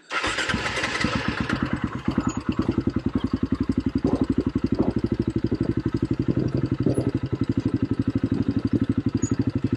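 Quad bike engine idling with a steady, rapid thump. There is a busier, noisier stretch in the first second or two before it settles into an even idle.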